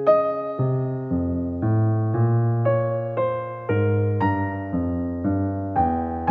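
Background music: a piano-like keyboard playing steady notes and chords, changing about twice a second.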